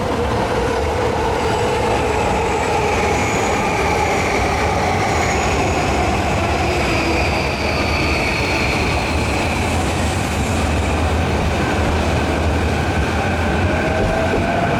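Electric commuter train moving through a station, a steady rumble of wheels on rail with electric motor whine that falls slowly in pitch through the middle, and new tones rising near the end.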